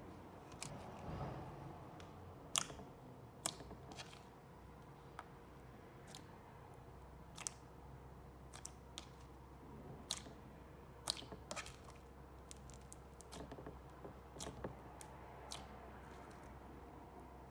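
Hands pressing and poking a thick, glossy slime mixed with foam beads, making sharp, irregular clicks and pops.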